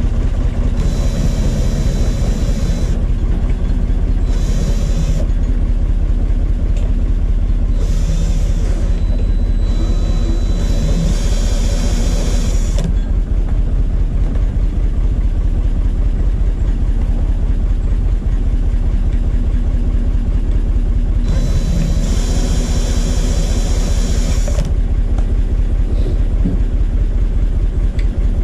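An engine idling steadily close by, loud and low throughout. Over it, a cordless drill spins a benchtop wire stripping machine in five short runs while insulated copper wire is fed through.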